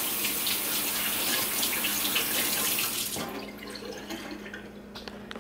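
Kitchen tap running into the sink while raw chicken is rinsed, shut off about three seconds in; a few faint clicks follow.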